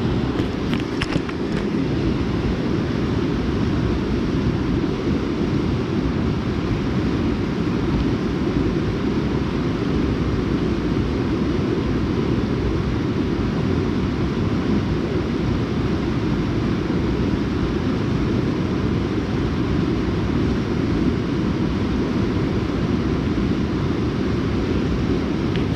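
Steady rush of a rocky mountain river's rapids, heaviest in the low end, with a few faint clicks about a second in.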